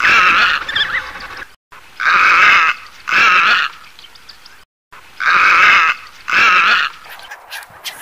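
Flamingos calling: nasal, goose-like honks, each about half a second long, coming in pairs roughly every three seconds.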